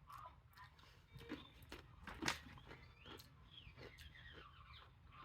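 Faint crunching and chewing of a dry, crunchy ramen snack: scattered soft crackles, the loudest about two seconds in.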